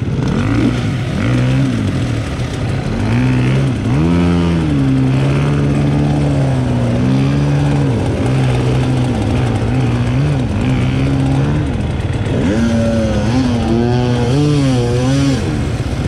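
Enduro motorcycle engine running, its throttle blipped again and again so the pitch rises and falls, with a quick run of blips near the end.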